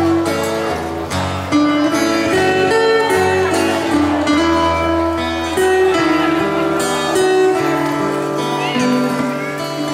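Live band playing an instrumental passage: a held, slowly moving melody over a steady accompaniment.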